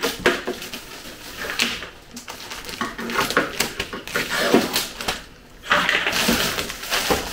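Scissors cutting through plastic wrap and the thin plastic film crackling and rustling as it is handled, with a denser stretch of crackling near the end as the film is pulled off.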